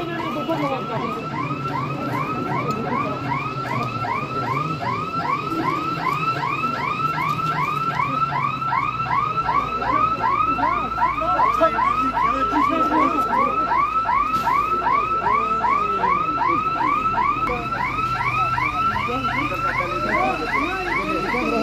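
Electronic siren in a fast yelp, one tone sweeping up and down about three times a second without a break.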